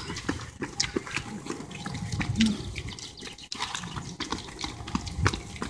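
Footsteps of several runners passing on a brick path: irregular shoe strikes, one after another.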